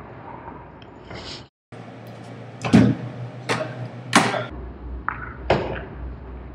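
Several sharp knocks and thuds, the loudest two about three and four seconds in, after a brief drop-out in the sound about one and a half seconds in.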